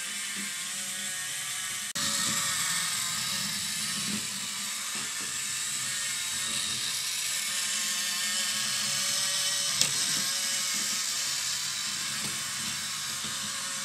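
Small electric drive of a model bus whirring steadily as it runs around the test track. It gets a little louder about two seconds in, and there is one sharp click near the ten-second mark.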